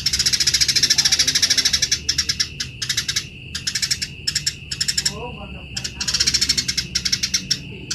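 Eurasian tree sparrows giving harsh, aggressive fighting chatter: fast runs of rapid rasping chirps that break off briefly a couple of times.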